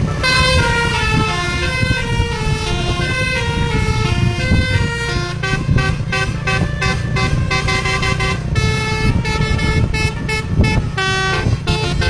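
A bus's basuri multi-tone air horn playing a tune slowly, note by note, over a low engine rumble. About five seconds in, the notes turn short and choppy for a few seconds, then go back to longer held notes.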